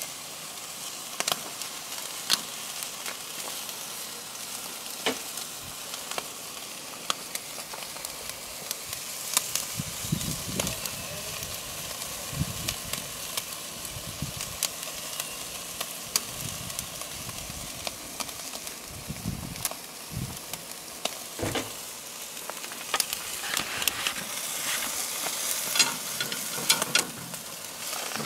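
Spiral sausages and marinated poultry breasts sizzling on the grate of a charcoal grill, a steady hiss with frequent pops and crackles of spitting fat, the pops growing denser near the end.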